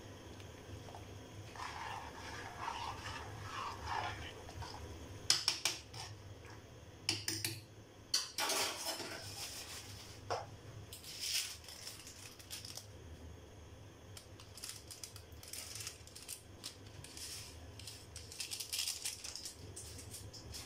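A spoon stirring dal in a cooking pot, scraping and clinking against the pot several times in the first half. After that come scattered soft crackling sounds as the dal simmers.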